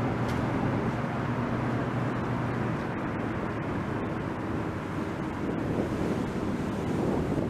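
Twin outboard motors of a speedboat running at speed as it heads away: a steady low drone that fades out about three seconds in, over the rush of its wake and wind noise on the microphone.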